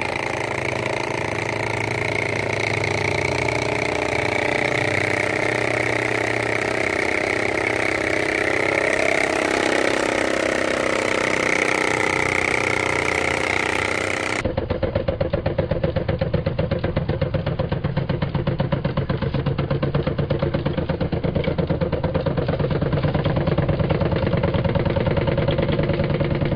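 A miniature walking tractor's engine sound, made to mimic a single-cylinder rice-field diesel, runs steadily while the model drives itself. About halfway through, the sound changes to a duller, evenly pulsing low chug.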